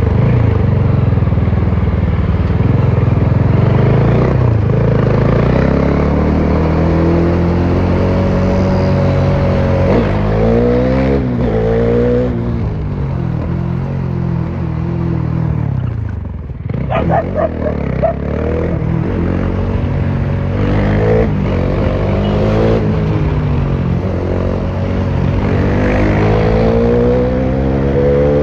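Bajaj Dominar 400's single-cylinder engine heard on board through an exhaust with the muffler removed, pulling hard: the note climbs with the revs and drops back at each upshift, again and again. About sixteen seconds in the throttle is briefly closed and the note falls away before picking up again.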